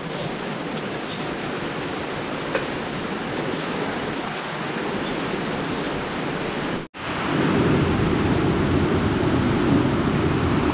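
Steady rain falling. It breaks off for an instant about seven seconds in and comes back louder and deeper.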